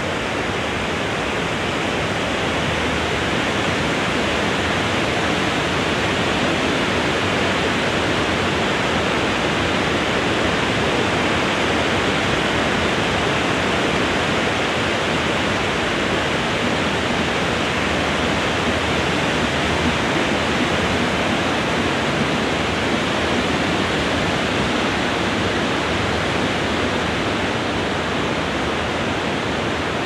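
Wind blowing through the leafy crowns of a stand of tall trees, a steady dense rustling hiss that swells slightly in the middle.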